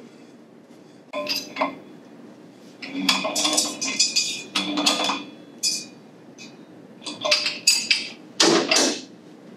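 Metal clinks and scrapes of a wrench working a threaded steel pipe nipple and tee on top of a sprinkler retard chamber as it is tightened, in several bursts with slight ringing. A louder metal clank comes near the end.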